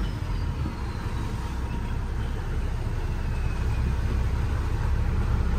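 Lobster boat's engine running with a steady low rumble.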